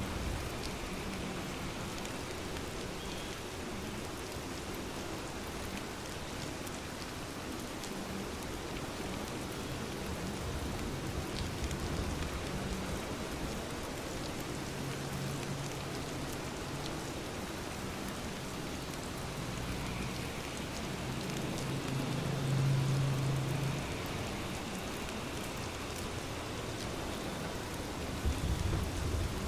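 Steady rain falling, an even hiss of drops on surfaces. A faint low hum swells and fades about two-thirds of the way through.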